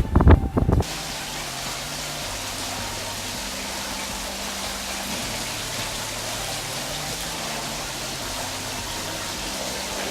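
Wind buffeting the microphone for under a second, then an abrupt change to a steady even hiss with faint low notes stepping slowly underneath.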